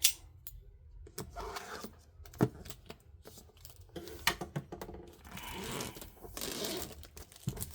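Packaging being opened and handled by hand: scattered clicks and knocks with stretches of scraping and rustling.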